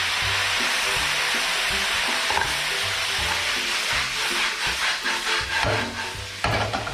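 Crayfish sizzling in hot oil as they are stir-fried in a pan, just splashed with rice wine, with the spatula stirring and scraping through them.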